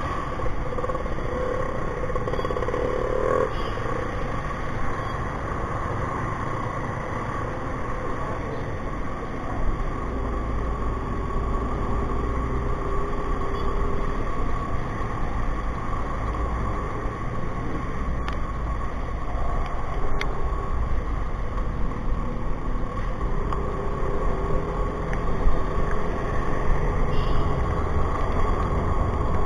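Motor scooter riding through traffic on a wet road: a steady run of engine and road noise.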